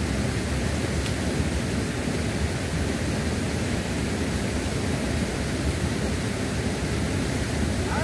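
Steady rushing of a waterfall and its fast-flowing river water.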